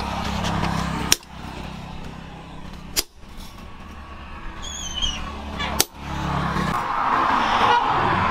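Hammer blows on a punch held in tongs, driving holes through a steel knife blade on an anvil: three sharp metallic strikes about two seconds apart.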